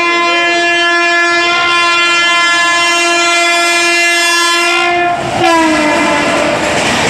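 A WAP7i electric locomotive's horn is held in one long, steady blast as the train approaches at speed. About five seconds in, the locomotive passes and the horn's pitch drops. After that comes the loud rushing of LHB coaches going by at speed, with a clickety-clack from the wheels.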